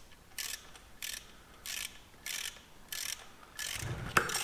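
Socket ratchet clicking in a steady rhythm, a short burst of clicks about every two-thirds of a second, as a bolt is wound into a jacking hole to press the output flange off a gearbox. A single sharper knock near the end.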